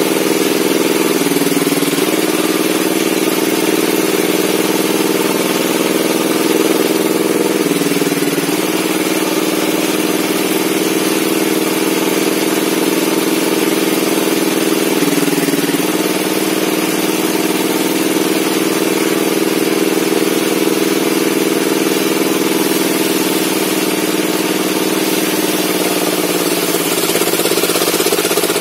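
Circular saw bench running steadily, its drive note dipping briefly in pitch about a second in, around eight seconds and around fifteen seconds in, then sagging slowly near the end, as the blade is loaded by the wood being cut.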